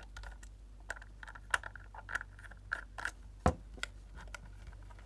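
Irregular light clicks and taps of a small screwdriver working the screws in a plastic jump-starter case, then of hands gripping and flexing the case, with a sharper click about three and a half seconds in.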